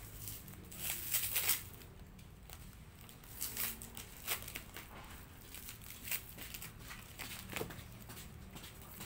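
Paper wrapping crinkling and rustling as a small parcel is unfolded by hand, in irregular bursts, the loudest about a second in.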